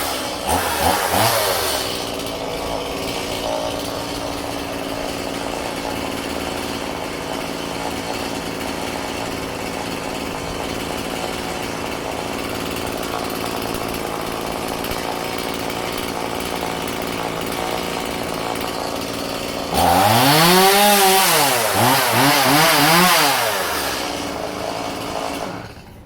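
STIHL MS180C two-stroke chainsaw coming down from a rev and settling into a steady idle, then revved up and down several times about twenty seconds in before dropping back and shutting off near the end. It starts easily and runs well.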